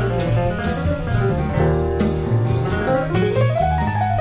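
Live small-group jazz: piano playing runs of notes, with a rising run near the end, over upright bass and a drum kit played with sticks, its cymbals struck steadily.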